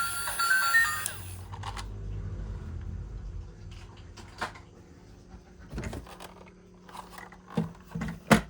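A short music jingle that stops about a second in. Then a low rumble, then scattered light clicks and knocks of toy vehicles being handled, the loudest near the end.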